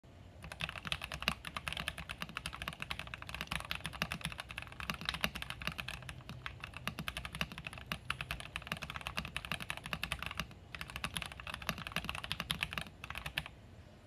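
Fast touch-typing at about 120 words a minute on an Akko ACR67 mechanical keyboard, foam-modded with a polycarbonate plate, Gateron Oil King linear switches and PBT keycaps: a rapid, even stream of creamy, poppy keystrokes. The typing pauses briefly a little past ten seconds and stops shortly before the end.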